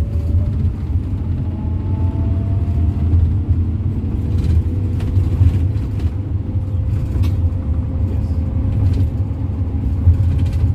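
Steady low rumble of a moving road vehicle's engine and road noise, heard from inside the cabin, with a faint steady whine above it and a few light ticks.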